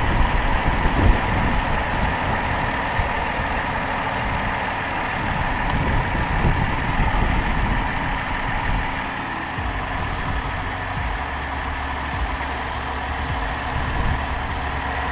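Dodge Charger's 3.6-litre Pentastar V6 idling steadily with the hood open, so the refilled coolant circulates after the thermostat replacement. Wind buffets the microphone.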